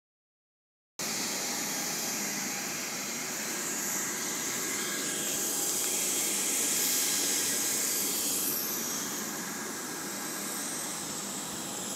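Steady high-pitched whine and hiss of a jet aircraft's turbine, swelling a little in the middle and easing off after, starting about a second in.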